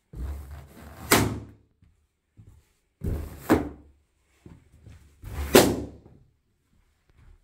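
Latex balloons bursting under studded football boots: three sharp, loud pops about two seconds apart. Each comes after a short build-up as the boot presses down on the balloon.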